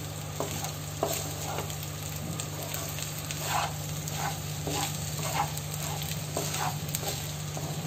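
Egg fried rice sizzling in a kadai on a high gas flame while a spatula stirs and tosses it, with repeated scraping strokes about once a second over a steady low hum.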